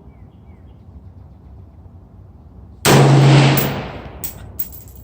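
A single shot from a .223 DPMS AR-15 rifle about three seconds in, sudden and loud, with a tail that fades over about a second. Two faint clicks follow shortly after.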